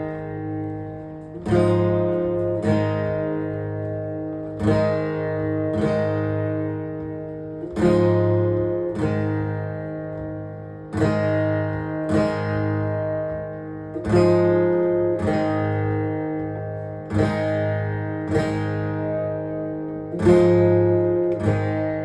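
Acoustic guitar strumming a slow chord progression, one chord about every second and a half, each left to ring and fade: the instrumental intro of a song.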